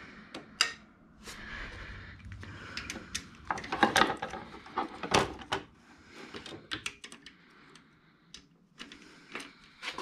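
Hand ratchet on a socket extension clicking in short, irregular runs as bolts are snugged up, with metal clinks of the tool; the loudest clatter comes about four and five seconds in.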